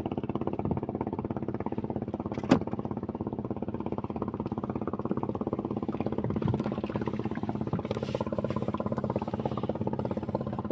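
A small engine running steadily at an even speed, with one sharp click about two and a half seconds in.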